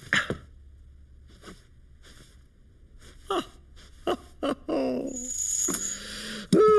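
Cartoon soundtrack: a few short knocks and clicks, then a cartoon character's wordless vocal noises. There is a short falling hum about five seconds in, a brief high whistle, and near the end a loud hoot that slides downward in pitch.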